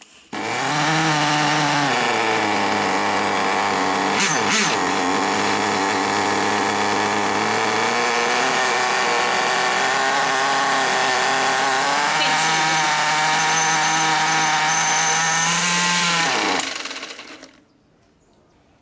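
Small two-stroke nitro glow engine of an RC monster truck idling, with a brief dip in the revs about four seconds in. Over its last few seconds the revs climb, then the engine winds down and stops: the pinch test, in which a pinched fuel line at idle makes an engine with a well-set low-speed needle rise briefly and die.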